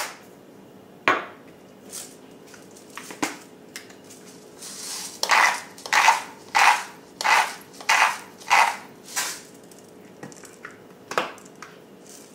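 A hand-twisted spice grinder grinding seasoning into the blender jar in about eight even rasping strokes, roughly one every two-thirds of a second. Scattered clicks and knocks of spice jars being handled come before and after the grinding.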